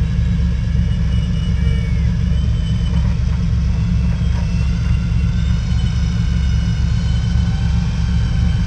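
Vehicle engines running with a heavy, steady low rumble as a stuck two-wheel-drive truck is slowly towed out of a creek.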